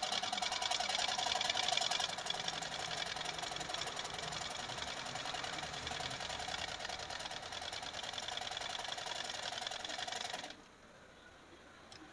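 Butterfly black domestic sewing machine running fast, stitching a test seam through fabric after its hook was reset closer to the needle to cure skipped stitches. The rapid even stitching stops suddenly about ten and a half seconds in.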